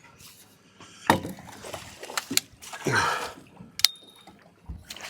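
Hooked snook splashing at the water's surface as it is netted, with a few sharp knocks against the boat.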